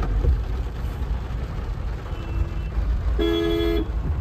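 Car horns honking in stop-and-go traffic, heard from inside a car: a faint short honk about two seconds in and a louder honk of about half a second near the end, over the steady low rumble of engine and road.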